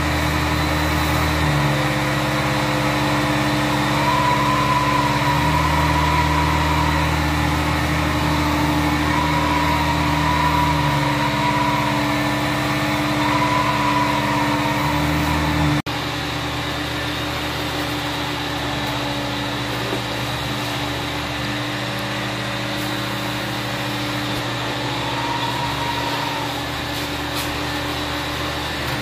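Hot-water extraction carpet cleaner running steadily as its wand is worked over a rug, the suction note shifting every few seconds with the strokes. About halfway through the sound changes abruptly to a similar, slightly quieter machine hum.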